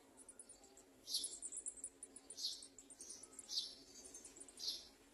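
Small birds calling: a fast run of very high, thin pips, with four louder, sharper calls about a second apart.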